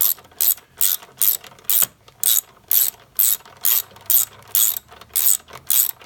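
Hand ratchet wrench clicking in short bursts, about two strokes a second, as a bolt is run down tight.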